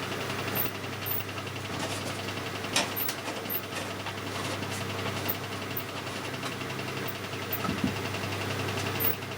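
Valve radio's speaker giving out a steady low hum with scattered crackles and clicks, while the set receives no station.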